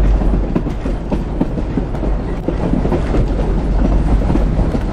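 Heritage railway carriage running along the track, heard from aboard: a steady heavy rumble with irregular clicks and knocks from the wheels and couplings.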